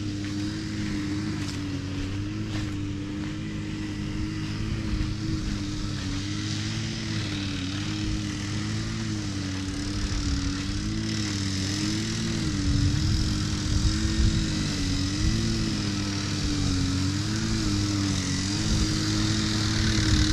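A steady engine or motor drone whose pitch sways gently up and down about every second and a half, growing slightly rougher and louder around the middle.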